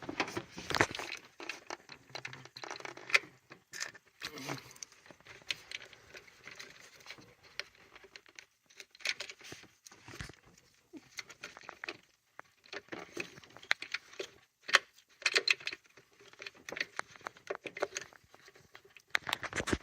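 Irregular clicks, taps and rustling of hands and hand tools working in an engine bay, taking off an ignition coil with the engine off.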